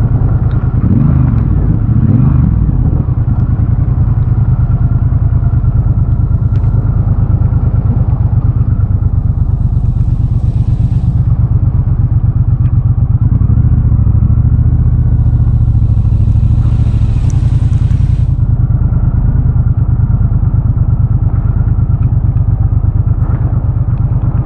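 Triumph Bobber's 1200 cc parallel-twin engine running steadily under way, with a loud, low, even pulse. A brief hiss rises over it twice, about ten seconds in and again for a few seconds around sixteen seconds.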